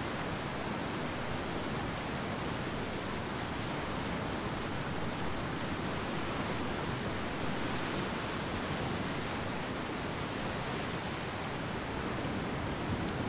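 Ocean surf on a beach, a steady, even wash of waves with no single crash standing out.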